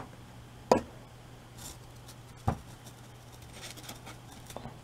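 Light knocks of objects being picked up and set down on a table: a red plastic cup and a foam model tower handled by hand, with three sharp knocks in the first two and a half seconds and a fainter one near the end. A faint steady hum lies underneath.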